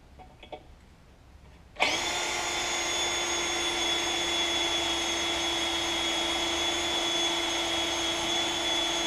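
Cordless drill starting up about two seconds in and running steadily with an even whine, drilling a crack-stop hole into a G56 transmission case at the end of a fracture crack. A few light clicks come before it starts.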